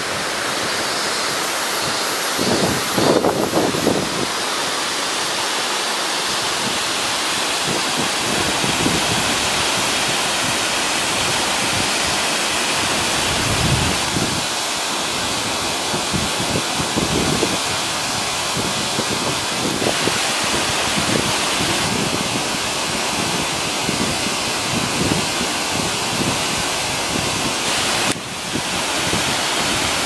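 Ōtodoro Falls: water pouring over rock ledges into a plunge pool, a steady, even rush of falling water. Irregular low rumbles of wind on the microphone run under it.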